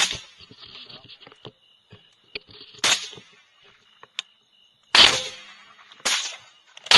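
Rifle shots fired in an irregular string: about five sharp cracks, one to two seconds apart, each with a short ringing tail.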